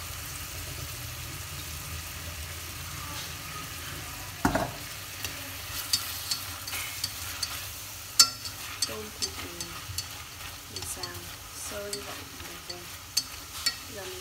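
Beef and prawns sizzling in a stainless steel pot, with wooden chopsticks stirring and clicking sharply against the pot from about six seconds in. A single louder knock comes about four and a half seconds in.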